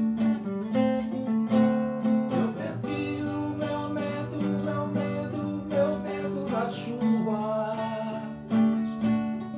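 Nylon-string classical guitar strummed in a steady rhythm, with a man's singing voice over the chords at times.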